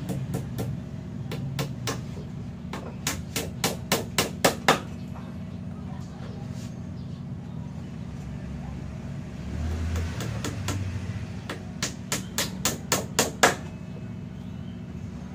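Repeated sharp knocks, like hammer blows, in two runs of about eight each that get quicker and louder, a few seconds in and again near the end. A steady low hum runs underneath.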